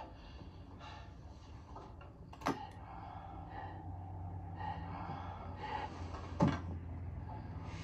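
Heavy book being handled: two sharp knocks about four seconds apart, the second louder, over a low steady hum.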